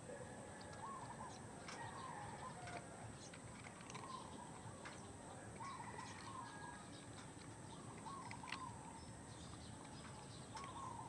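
Faint bird calls, a short wavering phrase repeated every second or so, over a steady outdoor hiss, with scattered light clicks.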